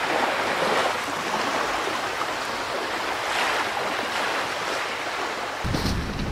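Surf breaking and washing up a beach, a steady surging wash. Near the end it gives way to a low rumble of wind on the microphone.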